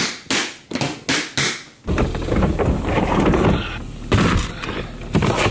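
A quick run of sharp knocks and clicks, about two or three a second, from a hard plastic Pelican-style case being shut and handled. About two seconds in, this gives way to a steady low vehicle rumble.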